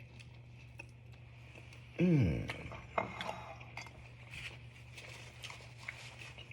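A man's short voiced "mmm" falling in pitch about two seconds in, as he tastes the dipped waffle, followed by faint scattered clicks of eating and handling, over a steady low hum.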